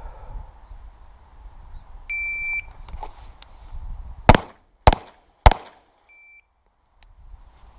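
A shot timer beeps the start signal. About two seconds later a pistol fires three shots, roughly 0.6 s apart, and these are the loudest sounds. About four seconds after the start, the timer gives a short second beep at the same pitch, marking the end of the 4-second par time.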